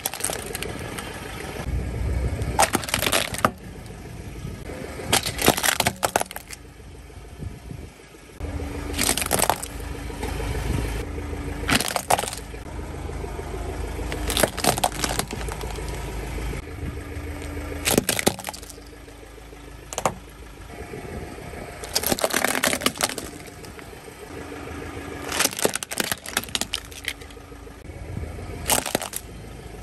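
Hard plastic toy cars cracking and snapping as a car tyre rolls over and crushes them on asphalt. The cracks come every few seconds, about ten in all, over the low rumble of the slowly moving car.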